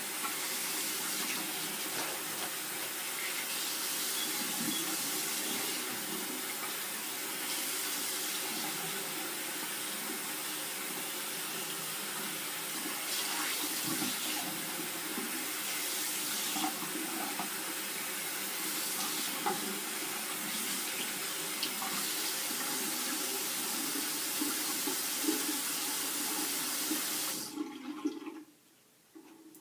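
Water running steadily from a tap while hair bundles are rinsed under it, shut off abruptly near the end.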